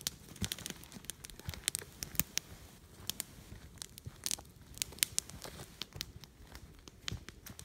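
Aluminium foil crinkling and crackling as a foil-wrapped disposable aluminium roaster pan is gripped in gloved hands and carried, with irregular sharp crackles throughout.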